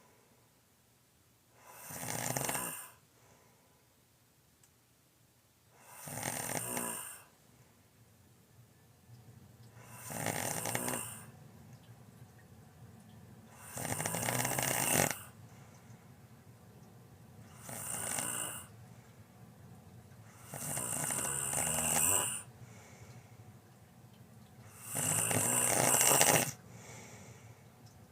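A sleeping person snoring loudly, one snore about every four seconds, with faint quiet between snores.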